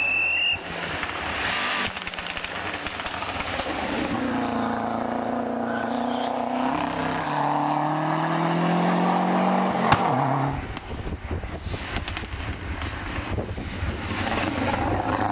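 Lancia Delta Integrale rally car's turbocharged four-cylinder engine at racing speed, its pitch rising and falling as it is driven hard. A single sharp crack comes about ten seconds in.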